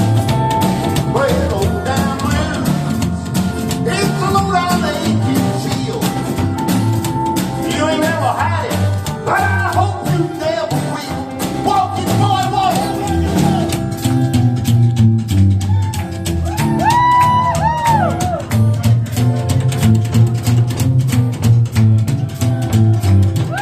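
Live country band playing: a steady drum beat, a bouncing bass line and electric guitar, with the lead guitar bending notes about two-thirds of the way through.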